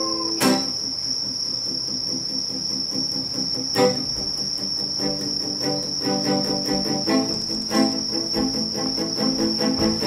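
Insects trilling steadily and high-pitched throughout, over an acoustic guitar that is struck about half a second in and again near four seconds, then picks slow, sparse single notes.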